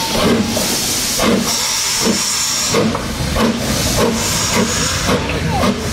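BR Standard Class 4MT two-cylinder steam locomotive no. 75078 pulling away slowly, its exhaust beats chuffing at a slow, slightly quickening rhythm over a steady hiss of steam.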